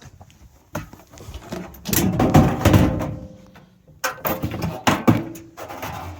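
Irregular knocking and rattling from hands handling hard objects, loudest from about two to three seconds in and again around four to five seconds.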